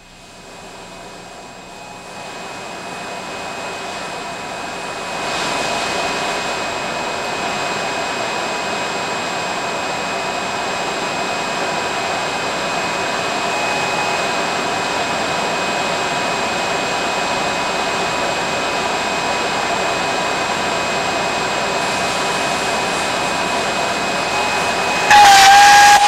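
Steady hiss from a saline-wetted bundle of MIL-W-81381 polyimide-insulated aircraft wire under power in a wet arc tracking test, growing louder over the first five seconds or so. About 25 seconds in, a loud electrical arc flashes for about a second with a wavering tone, until the circuit breakers trip and stop it.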